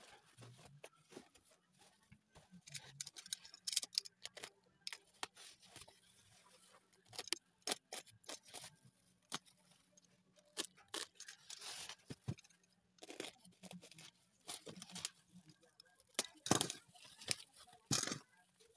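Bubble wrap and packing tape being cut and torn open with a box-cutter knife: irregular crinkling, crackling and tearing of plastic.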